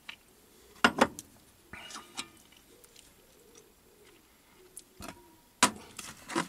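Metal clicks and knocks as the standard tumbler cluster gear is worked off its stud on a Myford ML7 lathe's gear train and handled, with the lathe stopped. There are two sharp knocks about a second in, a few lighter clicks around two seconds, and the loudest pair near the end.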